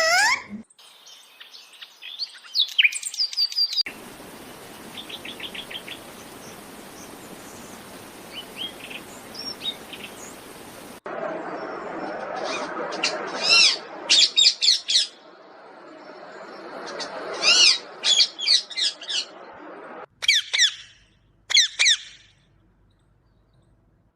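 Pet parrot calling in short, sharp chirps and whistles that swoop up and down in pitch, coming in several separate bursts over a steady background hiss.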